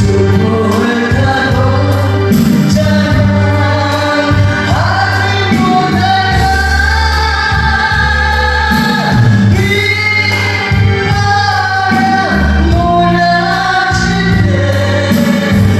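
A gospel hymn sung over a backing track, with held bass notes beneath a sung melody.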